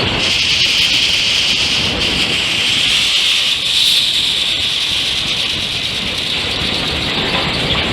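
Industrial machinery running: a loud, steady mechanical noise with a high-pitched squeal or whine on top, strongest about three to four seconds in.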